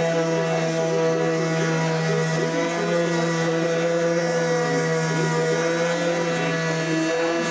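DeWalt 5-inch random orbit sander running steadily with a continuous motor hum, sanding oak cabinet doors with 120-grit paper.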